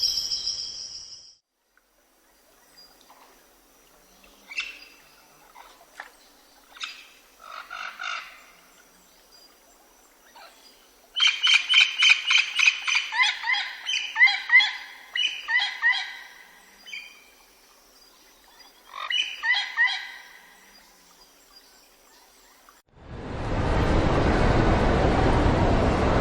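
Birds chirping outdoors, with a loud run of quick, repeated chirping calls in the middle, after a high insect trill of crickets fades out at the start. Near the end a steady loud rushing noise cuts in.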